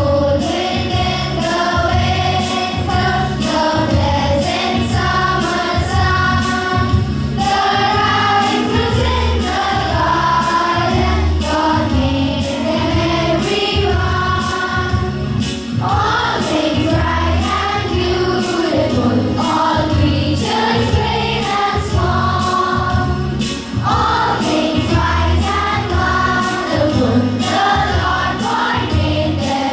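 A group of voices singing a song together over a steady rhythmic accompaniment.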